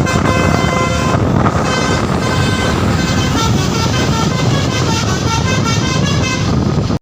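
A bus's basuri V3 'telolet' musical horn playing a melody: held notes at first, then a run of quick short notes from about three seconds in, over a loud low rumble. It cuts off suddenly at the end.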